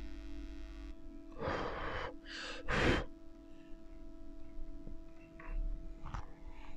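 Three short breathy puffs of air close to the microphone, about a second and a half in, the last one the loudest, over a faint steady hum; then a few faint ticks.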